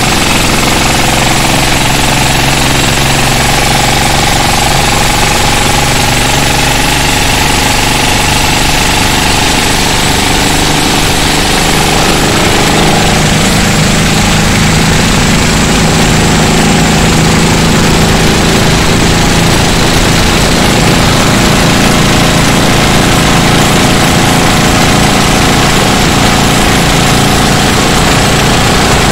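Dompeng single-cylinder diesel engine driving a racing longboat, running hard and loud with a knocking clatter over the rush of wind and water. Its note shifts slightly about halfway through.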